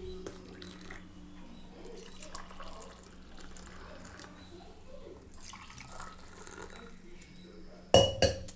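Faint liquid drips and small ticks over a steady low hum, then two loud sharp knocks close together near the end.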